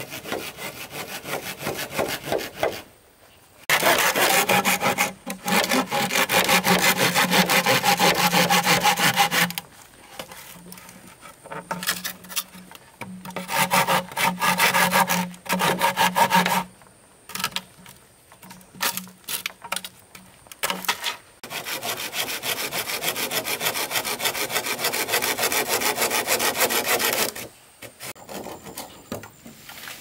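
Bamboo being sawn, in several bouts of rapid back-and-forth strokes with short pauses between.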